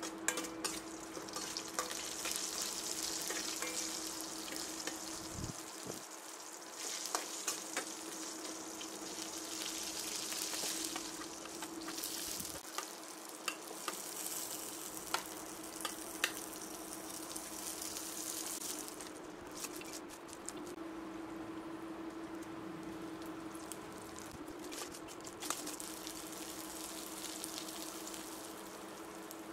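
Mustard seeds, cumin and dried red chillies sizzling in hot oil in a steel pan, stirred with a metal spoon that clicks and scrapes against the pan; partway through, chopped red onions go in and sizzle as they are stirred. A steady low hum runs underneath.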